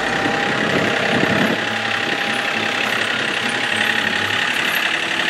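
John Deere compact tractor's Yanmar diesel engine running steadily.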